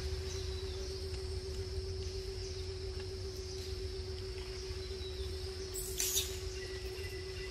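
Outdoor ambience: a steady low hum under high, thin insect chirring, with a brief rustle about six seconds in.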